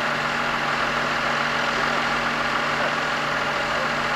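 Mobile crane's engine running steadily at idle while it holds a boat hull on its hook.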